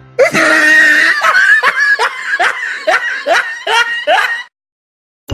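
Loud laughter, a rapid run of repeated laughs about three a second, cut off abruptly after about four seconds.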